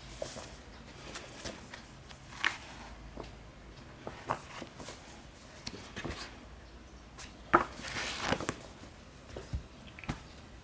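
Paperback manga volumes being handled: scattered light knocks, taps and paper or plastic rustles, with a louder rustling cluster about seven to eight seconds in.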